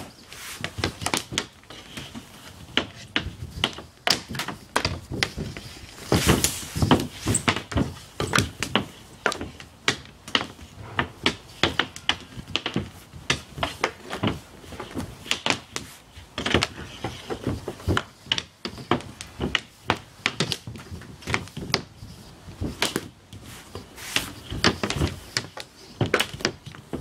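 Ball hockey shooting on a synthetic-ice pad: sticks clacking on the pad and hitting a plastic ball, and the ball thudding off the goalie's pads, in an irregular string of sharp clacks and thuds, often several a second.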